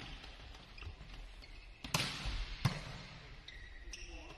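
Volleyballs being hit and smacking the hard court floor during spiking practice in a large, echoing gym hall: two sharp smacks about two seconds in, the first the loudest, with a few fainter knocks and brief high squeaks.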